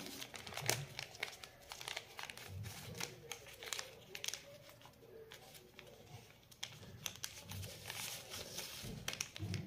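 Sheet of origami paper being folded and creased by hand: scattered soft crinkles and rustles.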